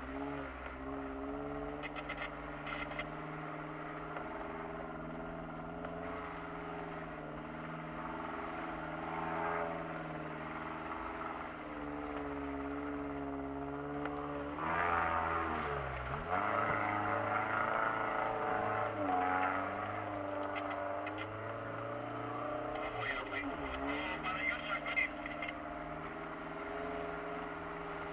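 Kia Sportage's engine heard from inside the cabin, pulling slowly over a rough off-road track, its pitch rising and falling with the throttle and dropping sharply about halfway through. Short rattles and knocks come a few seconds in and again near the end.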